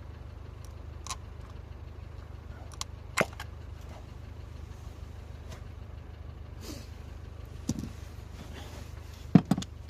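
A handful of short clicks and knocks from hand tools working on the engine's ignition coil and spark plug wells, the loudest about three seconds in and a pair near the end, over a steady low hum.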